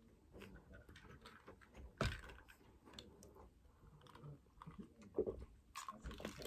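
Small, faint mouth clicks, then a sharp clink about two seconds in and a run of small clicks and taps near the end as a glass jar is handled and drunk from.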